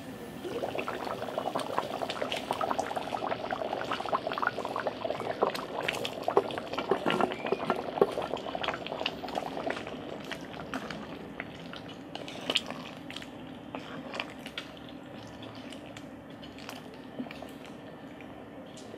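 Pork stew bubbling and crackling at a simmer in an open pot, stirred with a wooden spoon, with light knocks of the spoon against the pot. The bubbling is busiest in the first half and settles to a softer simmer after about ten seconds.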